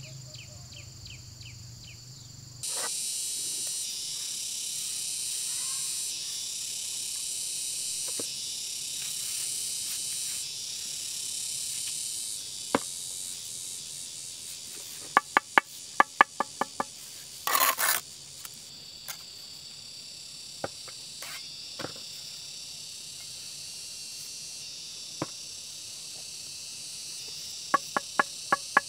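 Insects chirring steadily in a high, continuous chorus. A quick run of sharp knocks comes about halfway through, then a brief rasping burst, and a few more knocks near the end.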